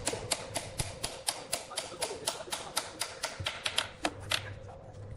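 Rapid, even tapping, about five sharp clicks a second, stopping about four and a half seconds in.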